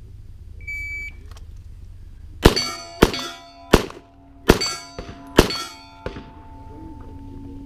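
A shot-timer beep, then about a second and a half later a string of five quick handgun shots, roughly two-thirds of a second apart, at steel targets. The struck steel plates ring, and the ringing carries on after the last shot.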